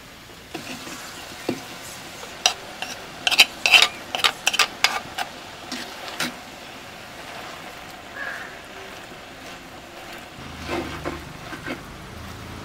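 Chopped jackfruit tipped into hot oil in a clay pot, sizzling, then a wooden spoon scraping and clacking against the pot as it is stirred, with a quick run of clatters about three to six seconds in.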